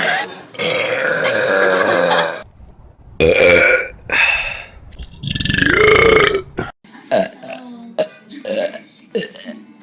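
People burping loudly in quick succession. First comes a long drawn-out belch, then two short burps. Another long belch follows, rising and then falling in pitch, and after it a run of short, quick burps.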